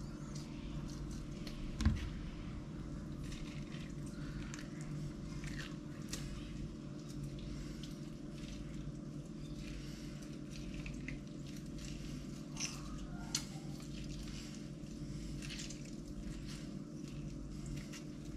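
A lime being squeezed by hand over a food processor bowl: faint squishes and drips of juice with scattered small clicks, over a steady low hum. A single thump about two seconds in is the loudest sound.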